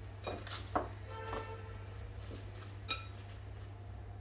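A few sharp clinks of dishes and utensils, with brief musical tones about a second in and again near the end. A steady low electrical hum runs underneath.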